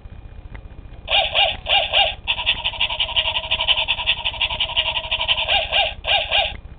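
Battery-operated mechanical toy dog barking through its small speaker: electronic barks come in two short pairs, then a longer unbroken run of barking, then another quick pair near the end.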